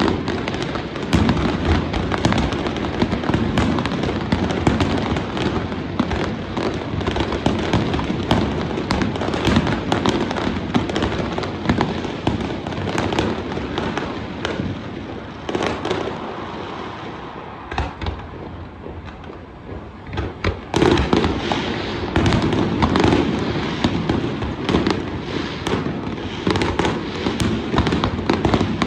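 Aerial fireworks display: a dense, continuous barrage of bangs and crackling shells. It eases off for a few seconds about two-thirds of the way through, then resumes loudly.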